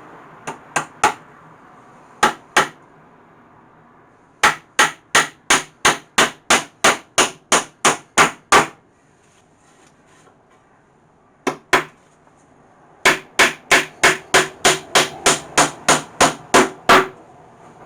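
Hammer driving nails into pallet wood: runs of sharp, evenly paced strikes, about three a second, with short pauses between runs.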